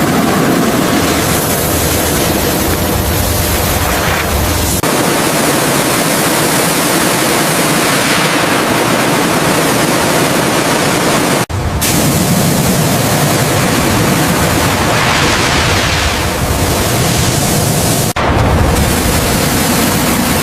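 Loud, steady rushing hiss spread across all pitches, like spraying or blasting. It breaks off abruptly twice, once about eleven seconds in and again about seven seconds later, and starts again straight away each time.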